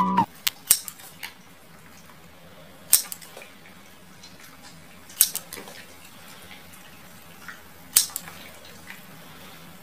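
Scissors snipping: a few quick clicks in the first second, then three sharp snips spaced two to three seconds apart.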